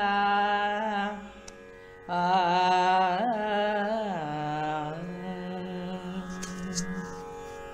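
Carnatic classical music in raga Shyama: a voice holds long notes with wavering ornaments over a steady drone, breaking off briefly about a second in. It then comes back and settles onto a long low note that fades out near the end, leaving the drone.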